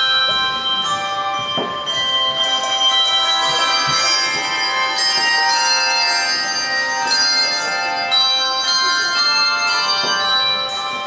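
A handbell choir playing a Christmas medley: many handbells struck in turn, their tones ringing on and overlapping.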